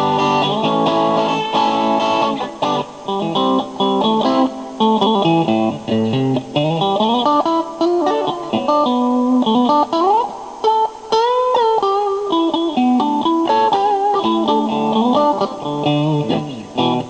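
Electric guitar with BG Pups pickups, the V60 middle and Hellabucker bridge pickups selected together, played through an amp on its crunch setting. Chords at first, then single-note lead lines, with a slide up about ten seconds in and bent notes with vibrato right after.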